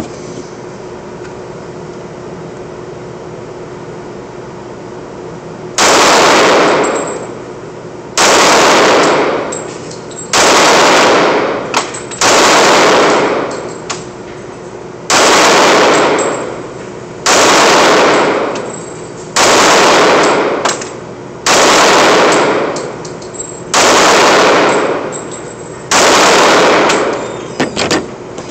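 Glock 30 .45 ACP pistol fired ten times at a slow, even pace, about one shot every two seconds, each shot ringing on in the echo of the concrete indoor range. The shots begin about six seconds in, after a steady background hum, and a few small clicks follow the last one.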